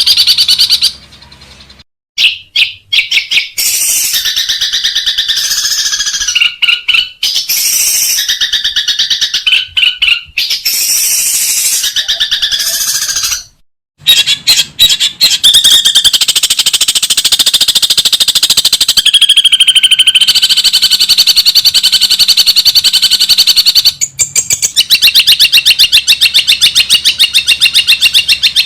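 Long-tailed shrike (cendet) singing loud, rapid chattering and rattling phrases that mimic other birds' calls, with two brief breaks, about two seconds in and halfway through.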